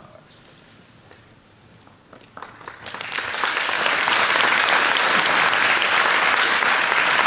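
Audience applause. It starts about two and a half seconds in, builds over about a second, then holds steady, greeting the end of a kata performance.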